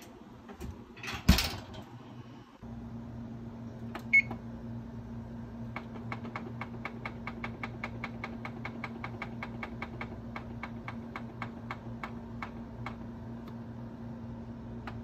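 A kitchen appliance: a thump, then a steady electric hum starts about two and a half seconds in. A short beep follows, then even ticks about four a second for several seconds, and another beep right at the end.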